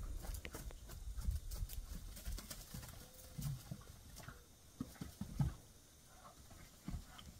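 Hooves of a Fjord horse and a donkey thudding and scuffing on dry dirt as the two play-fight, in irregular thumps that thin out after about five seconds.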